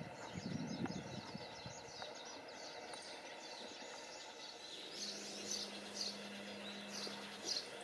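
Small birds chirping repeatedly, the chirps growing busier and louder over the second half, over faint outdoor background noise. A few soft low knocks sound in the first second or so, and a steady low hum comes in about five seconds in.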